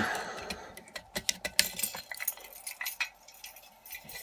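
Small metal pieces clinking and clicking in a string of irregular light taps as a padlock and lock-picking tools are handled.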